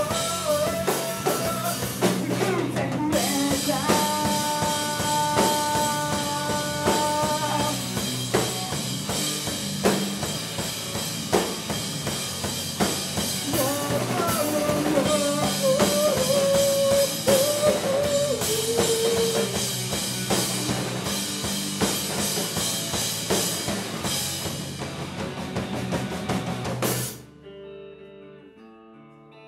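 A rock band playing live: drum kit, electric guitars and bass driving a steady beat, with a sustained melodic lead line over it. The music cuts off suddenly near the end, leaving only faint notes.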